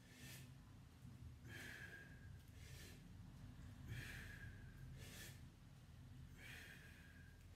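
A man breathing hard and rhythmically through push-up repetitions, one faint breath about every second and a half.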